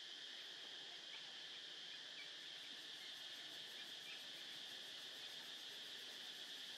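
Steady insect chorus, a high even buzz, with a few faint short chirps a couple of seconds in.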